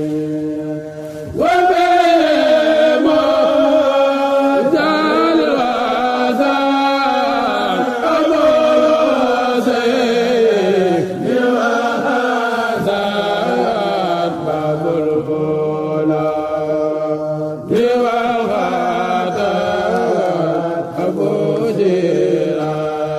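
A kourel chanting a khassida with voices only. A lead voice sings long, ornamented lines that bend in pitch over steady held notes from the chorus. The lead comes in strongly just over a second in and again about three-quarters of the way through.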